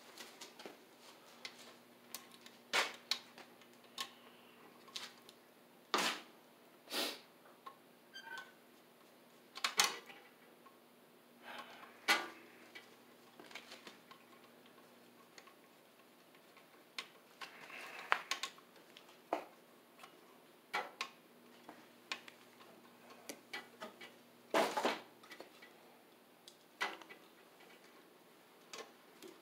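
Irregular metallic clicks and knocks as flexible armored cable and its connector are handled and fitted into a boiler control box. A faint steady low hum sits underneath.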